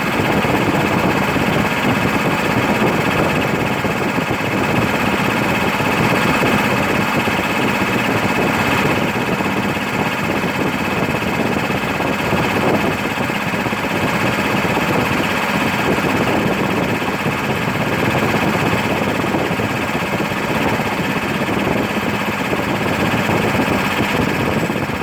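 1990 Bauer compressor running steadily under load, as when filling an 8-litre tank, with a constant mechanical drone and a steady higher whine.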